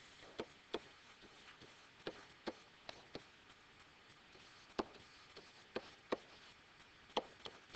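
Faint, irregular taps of a pen stylus touching down on its writing surface during handwriting, about a dozen short clicks spread unevenly over a low hiss.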